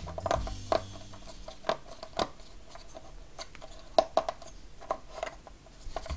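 Small hard-plastic model parts of a miniature piano clicking and tapping as they are handled and pushed into their slots: irregular light clicks and knocks, the sharpest one about four seconds in.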